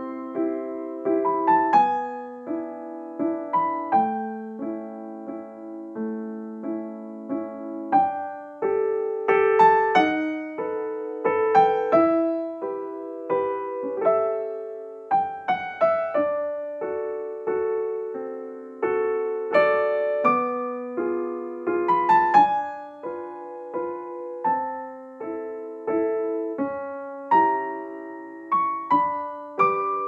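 Background piano music: a slow melody of struck notes and chords, each note left to ring and fade.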